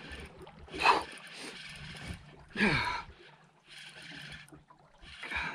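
Fishing reel being cranked in spurts against a hooked striped bass, with two short strained grunts from the angler, the second falling in pitch.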